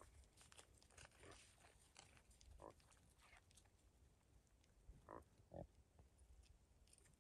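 Faint short grunts from reindeer, a few brief calls, two of them close together about five seconds in, with scattered light clicks.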